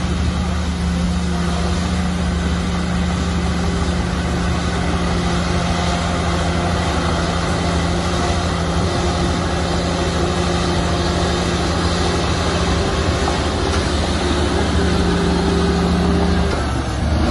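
Heavy diesel engine of earthmoving machinery running steadily, with a short dip about a second before the end.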